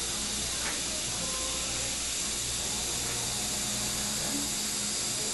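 A steady, even hiss with a faint low hum beneath it.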